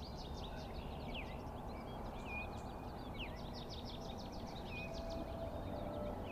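Several songbirds chirping and singing, with quick repeated high chirps and a few downward-sliding whistled notes, over a steady low outdoor rumble.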